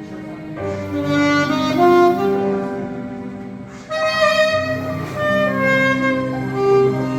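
Saxophone playing a slow melody of held notes over a sustained accompaniment, one phrase starting about a second in and a second phrase just before the midpoint.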